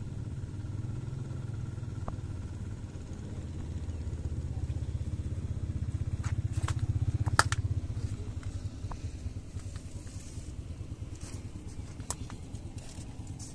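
Motorcycle engine running at low revs close by, growing a little louder and then stopping about eight seconds in. A few sharp clicks are heard around the middle.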